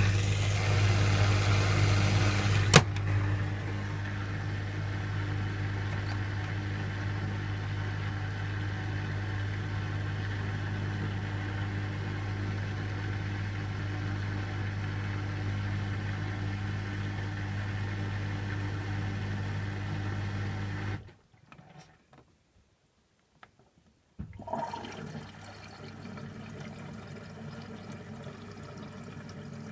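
Beko washing machine running with water rushing through it over a steady low hum, with one sharp click about three seconds in. The sound drops out to near silence about two-thirds of the way through, then comes back quieter as water trickling and pouring.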